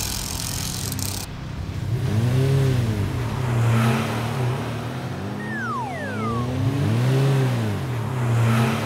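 Cartoon car-engine sound effect: a steady engine hum with two revs that swell up and fall back, the first about two seconds in and the second about seven seconds in. A hiss of car-wash spray cuts off about a second in, and a couple of falling whistle-like tones sound around the middle.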